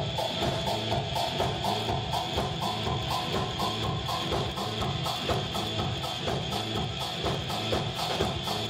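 Live percussion band playing: congas and djembes drumming a steady, dense groove, with electric guitar.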